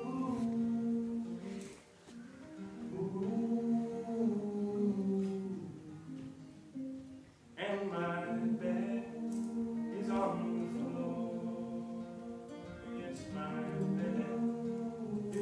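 Several male voices singing long held notes together in harmony over acoustic guitar. The sound thins out twice, then the voices come back in together strongly about halfway through.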